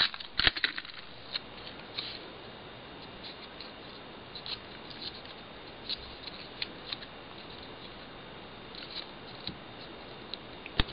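Handling of small paper pieces on a craft desk: scattered soft ticks, taps and rustles as hands press and smooth the paper down, a few more of them in the first second, over a faint steady hiss.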